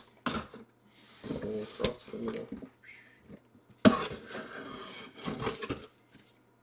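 Cardboard shipping box being slit open and handled: scraping and rubbing of cardboard in short stretches, with a sudden loud noise a little under four seconds in as the box is pulled about.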